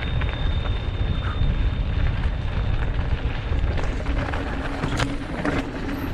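Mountain bike descending a dirt and rock trail: the tyres crunch over the ground and the bike rattles, with a few sharp knocks about five seconds in. A steady low wind rumble sits on the camera microphone.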